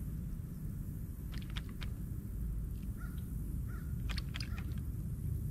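Steady low rumble of wind on the microphone, with a few short, harsh bird calls, like a crow cawing, about one and a half and four seconds in.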